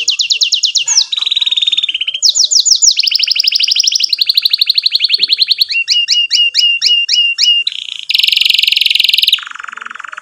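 Domestic canary singing a long, continuous song of rapid trills, switching to a new repeated phrase every second or so. About six seconds in comes a run of quick down-sweeping chirps, then a harsh buzzy stretch near the end.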